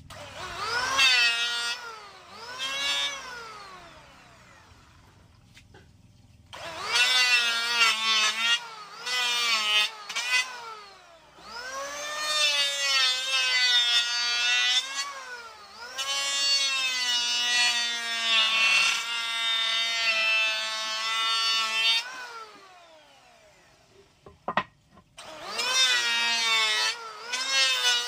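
Ossel MS1900 450-watt electric hand planer switched on and off several times, its motor whine rising as it spins up and falling as it winds down. It is shaving a wooden beam, in short bursts at first and then in longer runs, with two quiet pauses.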